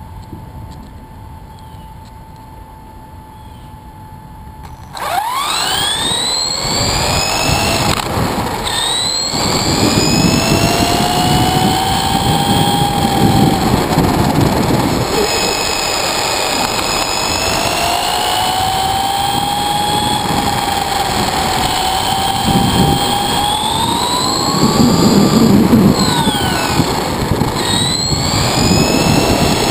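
Brushless motor of an Axial Exo RC buggy (4600 kV four-pole motor on a Tekin RX8 controller, 3S battery) whining as the car drives, its pitch rising and falling with the throttle, over rough tyre and road noise on asphalt. The first few seconds hold only a faint steady tone, then the car pulls away suddenly about five seconds in.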